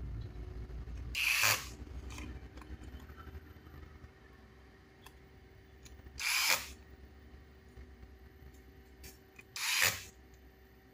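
Cordless electric screwdriver run in three short bursts, driving screws into an RC truck's plastic chassis. The bursts come about a second in, about six seconds in and near the end.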